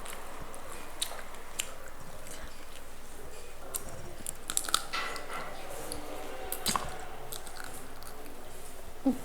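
A person chewing and biting fried chicken, with irregular crunching clicks.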